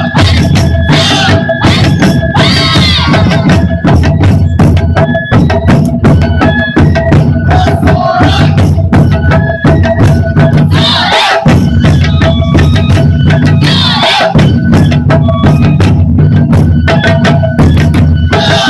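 Japanese taiko drum ensemble playing a fast, dense rhythm, with a high stepping melody over the drums. The deep drums drop out briefly twice, about eleven and fourteen seconds in.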